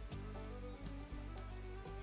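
Background music with a steady beat, bass and melodic instruments.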